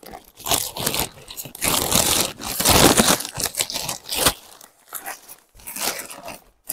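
Plastic mailer bag crinkling and rustling as it is torn and pulled open by hand, in loud bursts for about four seconds, a short lull, then another burst of rustling near the end.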